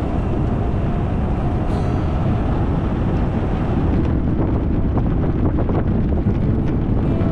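Wind buffeting the microphone of a moving velomobile, over a steady low road and tyre rumble, with a few faint ticks about four to six seconds in.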